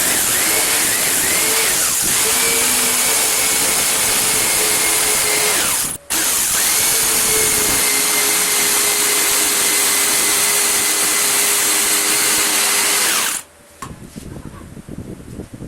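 Electric power tool running at full speed: a loud whine over a hiss, its pitch dipping briefly now and then as it takes load. It breaks off for an instant about six seconds in and stops abruptly near the end, leaving faint knocks of handling.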